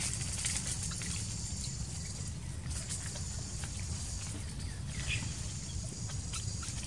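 Outdoor ambience: a steady low rumble like wind on the microphone and a steady high hiss, with scattered faint ticks and a brief short squeak about five seconds in.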